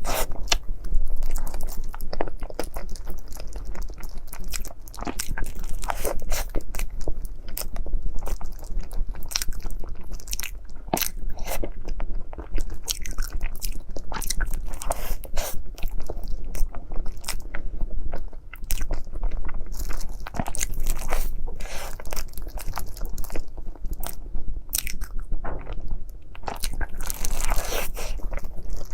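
Close-miked eating: crunchy bites and chewing of a dessert, a dense run of small crackles and crunches.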